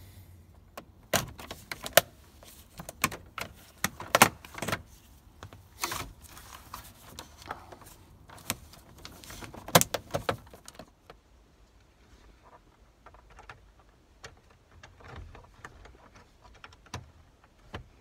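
Plastic steering-column shroud of a 2004 Chevy Tahoe being pried apart with a plastic trim tool: a run of sharp plastic clicks and snaps as the halves are worked loose, loudest in the first ten seconds or so, then lighter, scattered ticks of handling.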